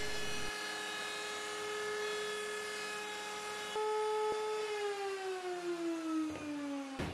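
Router mounted in a router table, running steadily with a high whine. About four seconds in its pitch steps up slightly as the workpiece comes off the bit, then the whine falls steadily as the motor is switched off and winds down.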